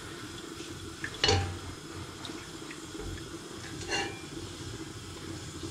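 Gram flour and oil sizzling in a hot heavy-bottomed pot while a spoon stirs it, with short scrapes or knocks against the pot, the loudest about a second in and another near four seconds.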